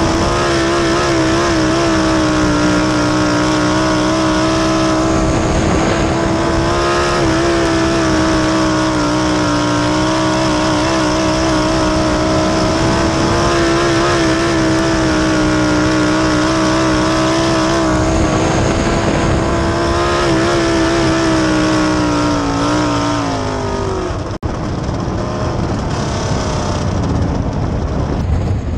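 Onboard sound of a winged dirt sprint car's engine at racing speed, a loud, steady high note that rises and falls slightly through the corners. Near the end the note drops, then breaks off for an instant and comes back lower and rougher.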